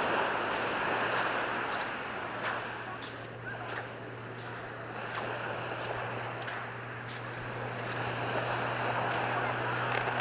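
Sea waves washing onto a beach, swelling at the start and again near the end, over a faint steady low hum.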